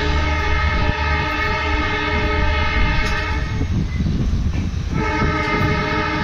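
EMD diesel locomotive's air horn sounding a long blast. It breaks off about three and a half seconds in and sounds again about five seconds in, over the steady rumble of the train's wheels on the track.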